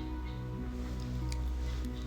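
Soft background music of sustained held notes that shift from one pitch to another.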